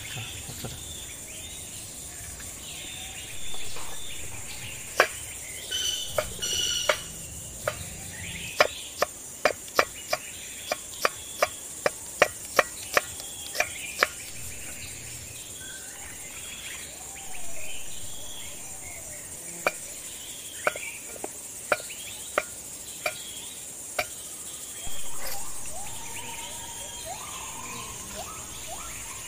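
A kitchen knife chopping onion on a wooden chopping board: a run of sharp taps about twice a second through the first half, with a few more later. Under it runs a steady high insect drone, with scattered bird chirps and a few brief louder swells of noise.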